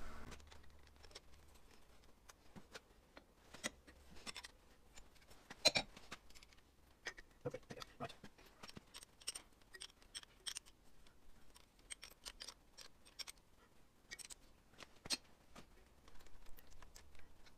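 Faint, irregular metallic clicks and taps of a battery isolator switch and its cable terminals being handled while the terminal nuts are done up.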